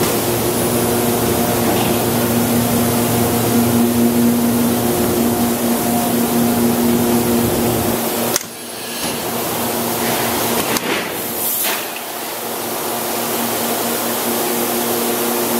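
Steady electrical hum and hiss of a powered thermoforming machine, a low hum with several higher tones above it. The hum drops away abruptly about eight seconds in, a couple of short noises follow, and the hum returns near the end.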